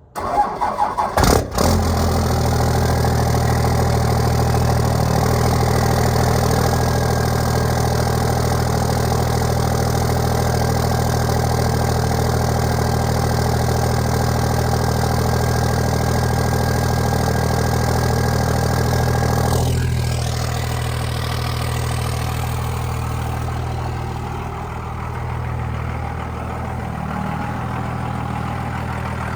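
Diesel engine cold-started: it cranks and fires unevenly for about a second, then catches and settles into a steady idle. About two-thirds of the way through the sound drops somewhat in level.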